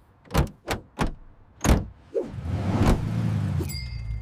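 A few sharp clicks and knocks, then the van's engine starts about two seconds in and settles into a steady idle. A thin high tone comes in near the end.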